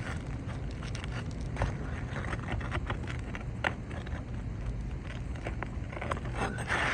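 Asphalt shingles being pried loose: scattered light clicks and scrapes over a steady low rumble.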